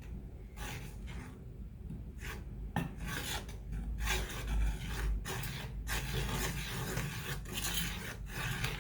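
Spoon or utensil stirring dry seasoned flour in a bowl, with a run of irregular scraping and rubbing strokes.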